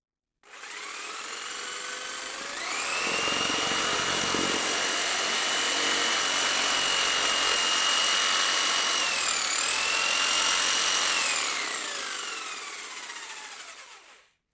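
Skil circular saw motor starting up and climbing to a steady high whine. About nine and a half seconds in the pitch dips briefly and recovers, then the motor winds down with a falling whine until it stops.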